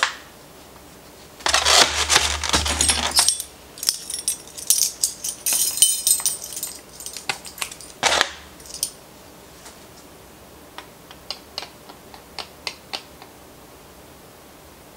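Kitchen handling noises as ground sage is measured out: spice containers and small utensils clatter and clink, with a loud rustling clatter a second or two in and a sharp knock about eight seconds in. Later comes a series of light ticks and taps.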